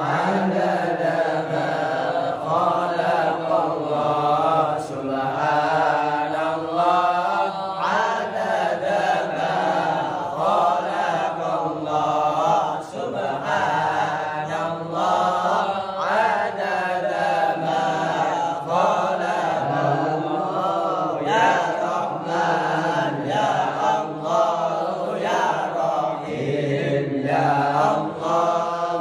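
A man reciting the Qur'an aloud in Arabic in a melodic chanted style, his voice gliding between notes in long phrases with short pauses for breath.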